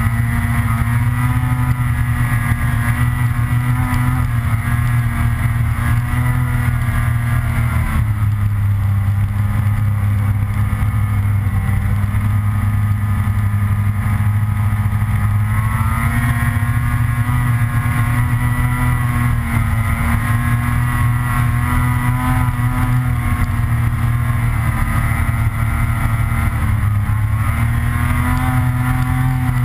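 Snowmobile engine running at speed under the rider, its pitch rising and falling with the throttle.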